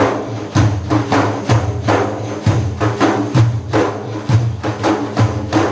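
Instrumental interlude of Arabic madih music: a steady hand-percussion beat of about three strikes a second over a deep drum about once a second, with held accompanying tones.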